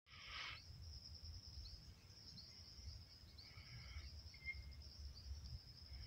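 Faint countryside ambience: a steady high insect drone with short bird chirps over it and a low rumble underneath.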